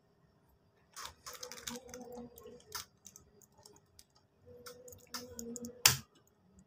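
PCP air rifle being handled between shots: a run of small metallic clicks and scrapes from working the action, then one sharper click about six seconds in.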